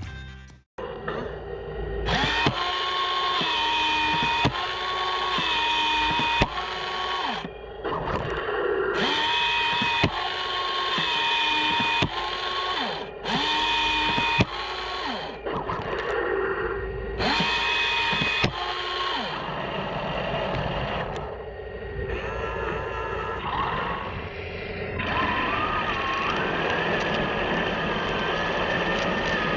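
A 1/16 Heng Long Walker Bulldog RC tank being driven in short runs. Its electric drive motors and freshly installed gearboxes whine in repeated bursts, rising in pitch at each start and dropping away at each stop, then run more steadily near the end.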